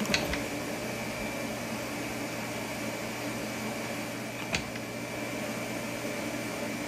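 Two sharp metallic knocks from a hand-operated fly press as its ram comes down on a red-hot part held in tongs: one right at the start and another about four and a half seconds in. Under them runs a steady machine hum with a faint high whine.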